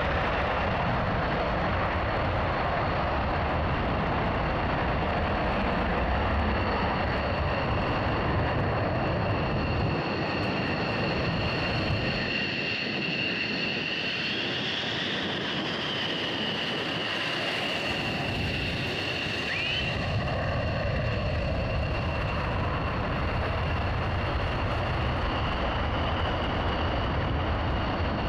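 Twin Pratt & Whitney F100 turbofans of USAF F-15 fighter jets: loud, dense afterburner noise of a take-off roll with a steady high turbine whine over it. About halfway through the deep part falls away, leaving the whine of a jet taxiing at low power with a brief rise in pitch. It builds back to full afterburner noise for the next take-off.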